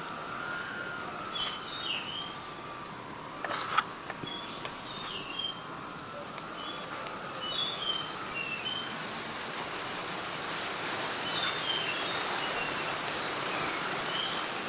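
Small birds chirping on and off over a steady rush of wind noise, with one sharp click about four seconds in.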